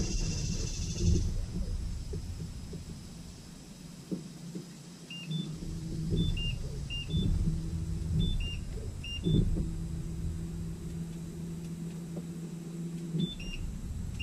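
Small electric trolling motor humming in stretches, starting and stopping; the longest run lasts about four seconds and cuts off near the end. Pairs of short high electronic beeps come between the runs.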